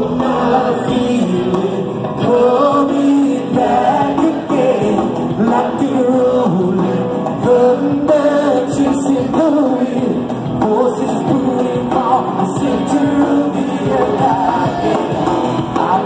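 Rock band playing live in a large hall, a male lead singer over electric guitars and drums, heard from within the audience.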